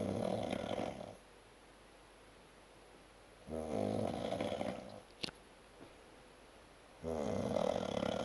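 A man snoring heavily in drunken sleep: three long rattling snores about three and a half seconds apart, each lasting about a second and a half, the first already under way at the start. A single sharp click comes shortly after the second snore.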